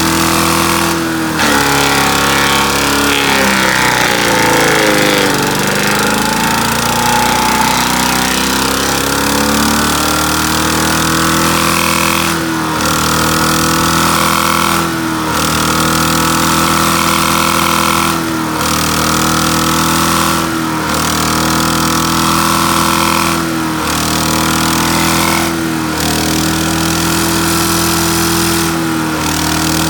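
Gas engine of a Great Circle wood chipper running at speed. About three seconds in it bogs down in pitch as a piece is chipped, then recovers over several seconds, and after that it sags briefly every two to three seconds as more pieces go through.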